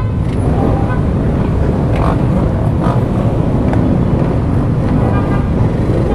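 Many motorcycle engines running and revving together as the field pulls away from the start grid, a dense steady rumble. Short higher-pitched tones sound near the start and again near the end.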